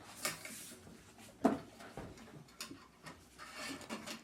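Handling noise from unpacking animatronic parts: scattered rustling and small clicks of packaging and plastic pieces, with one sharp knock about a second and a half in.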